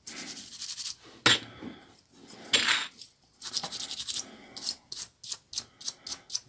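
Toothbrush bristles scrubbing the plastic keys of a Nokia 6310i keypad, cleaning off dirt in short rasping strokes that come quicker, about five a second, in the second half. A sharp click about a second in.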